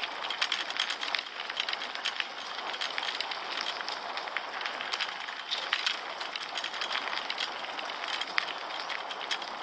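Carrera e-bike's tyres rolling over a gravel track, a steady crunching dense with small crackles and clicks of grit.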